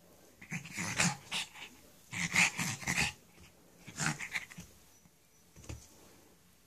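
Shih Tzu growling in play, in three short bouts of about a second each and a brief one near the end.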